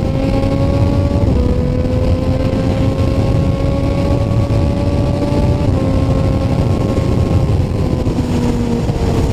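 Heavy wind noise rushing over the microphone of a Triumph Street Triple 765RS at high highway speed, with the steady hum of its three-cylinder engine underneath. The engine pitch holds nearly level, dipping slightly a few times.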